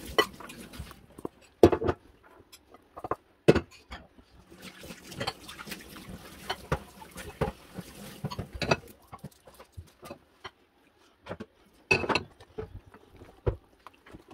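Wire whisk stirring a thick vegetable batter in a glass bowl: wet mixing sounds broken by irregular knocks and clicks of the whisk against the glass, a few of them louder.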